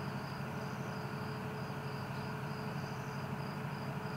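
A cricket chirping steadily, short high chirps about three a second, over a steady low hum.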